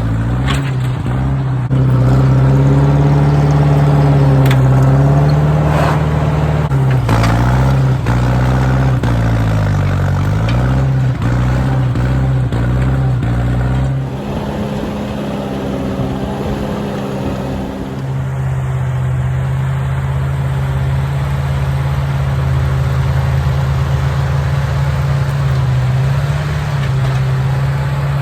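Massey 50 tractor engine running under load while pulling a two-furrow plow through hard, rocky sod. Its pitch sags and recovers a few times about a third of the way in. Around the middle it runs quieter and at a different pitch for a few seconds, then settles back to a steady run.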